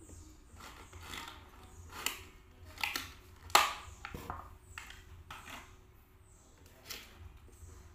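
Thin plastic mooncake trays and a clear plastic wrapper crinkling and clicking as they are handled and pushed across a glass table, in a string of short crackles, the loudest about three and a half seconds in.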